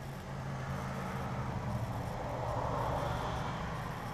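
A steady low machine hum, with a soft rushing noise that swells up about two to three seconds in and fades toward the end.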